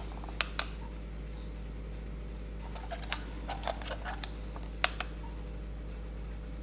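Scattered light clicks and taps, a few close together in the middle and one sharper one near the end, over a steady low hum.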